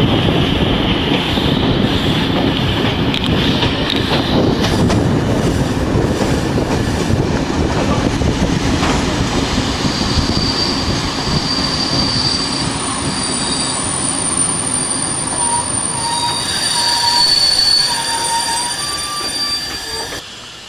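Passenger train running on the rails, heard from an open coach window, with a steady rumble and rattle. From about halfway through, the wheels give high, thin squeals that come and go as the train slows near a station.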